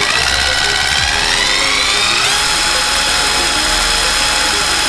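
Sealey CP1204 12-volt cordless impact wrench running free, its motor whine climbing as the variable-speed trigger is squeezed further, jumping to full speed a little over two seconds in and holding steady there.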